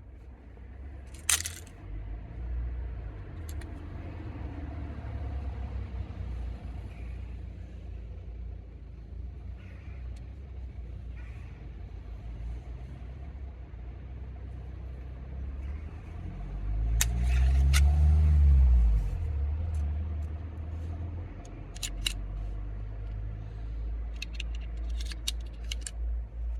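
Steady low rumble, with a vehicle passing about two-thirds of the way through, its engine note rising and falling. Sharp clicks sound here and there, in a quick run near the end.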